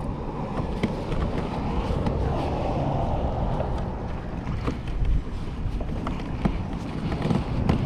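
Wind buffeting the microphone over water lapping around a kayak, with a few light clicks scattered through.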